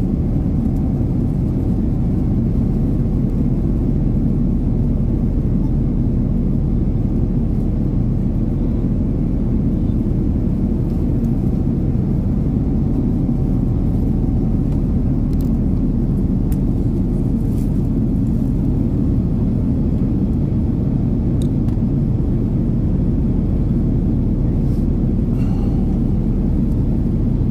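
Steady low roar of the engines and rushing air inside the cabin of an Airbus A330-900neo in flight, heard from a seat beside its Rolls-Royce Trent 7000 engine, with a faint steady hum running through it.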